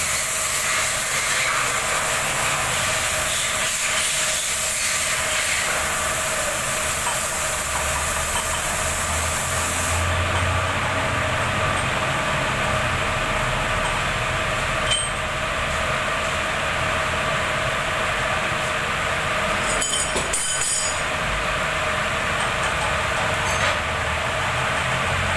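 Steady hum and hiss of running machine-shop machinery; a bright hiss cuts off about ten seconds in. Later come a few short metallic clinks from work at the lathe chuck.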